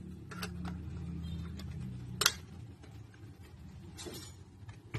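Plastic clicks from handling a digital bathroom scale. A sharp snap about two seconds in, as the battery cover is pressed shut, is the loudest. A softer scrape follows near the end as the scale is turned over.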